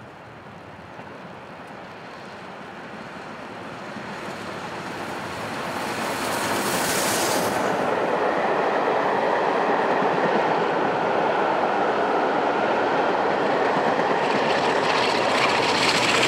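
LMS Black Five 4-6-0 steam locomotive 45212 approaching and passing close below, growing louder over the first several seconds. A sharp rush of noise comes about seven seconds in as the engine goes by, then its carriages roll past with a steady wheel-and-rail clatter.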